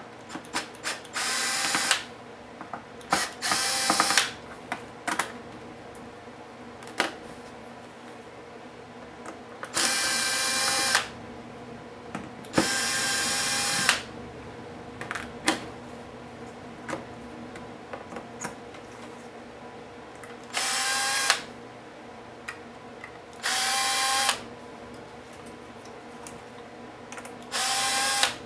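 Electric screwdriver spinning screws out of a laptop case in short runs of about a second each, seven times, with a steady motor whine. Small clicks and taps of handling come between the runs.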